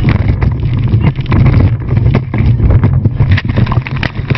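Motorboat running hard, with wind buffeting the microphone and irregular sharp slaps and knocks as the hull slams from side to side on the water.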